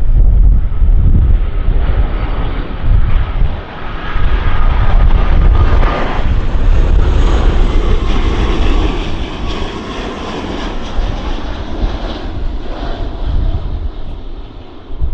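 Airbus A330-200 twin-jet airliner landing: its engine noise swells to a peak about halfway through and then fades, with a faint whine over the rush. Wind buffets the microphone with a low rumble throughout.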